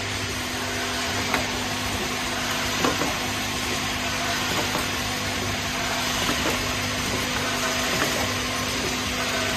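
Automatic plastic vial filling and capping machine running: a steady mechanical hum and hiss, with a few sharp clicks now and then.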